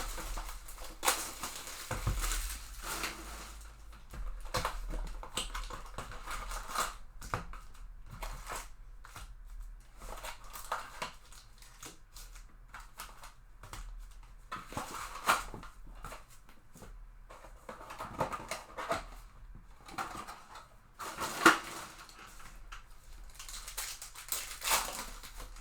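Crinkling and rustling of plastic shrink wrap and cardboard, with irregular clicks and snaps: a sealed box of trading cards being unwrapped and opened by hand.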